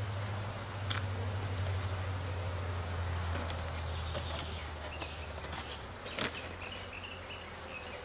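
Honeybees buzzing around open hives, a low hum that eases off about six seconds in. A couple of sharp knocks from the wooden hive boxes being handled, and faint bird chirps near the end.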